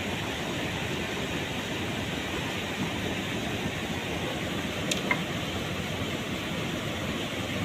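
Steady rushing outdoor noise, with two faint clicks about five seconds in.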